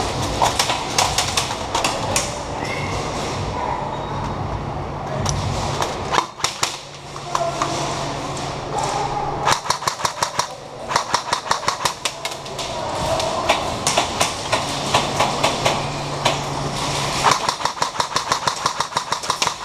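Airsoft rifles firing, with rapid strings of shots from about ten seconds in and again near the end. A low steady hum comes and goes underneath.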